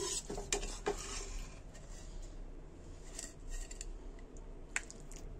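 A perforated metal spatula scraping and clicking against a metal kadhai as cooked vegetables are scooped out. Several clicks come in the first second, then fainter scrapes and a few more clicks later on.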